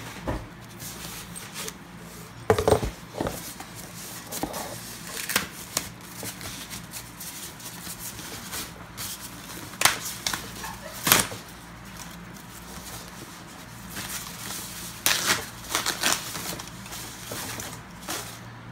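Packing material being handled: a white foam wrap sheet rustling and crinkling, with cardboard and cables knocking, as a soundbar is unwrapped and lifted out of its box. Irregular short sharp rustles, the loudest about two and a half seconds in and again about eleven seconds in.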